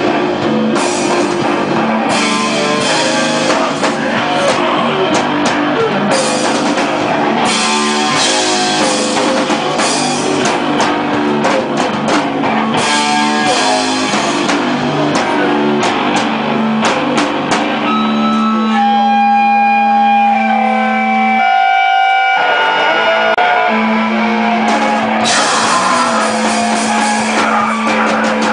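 Hardcore band playing live: distorted electric guitars and bass over drums with crashing cymbals. About two-thirds of the way through, the cymbal crashes give way for a few seconds to long ringing guitar notes, with a short break in the low end, before the full band comes crashing back in.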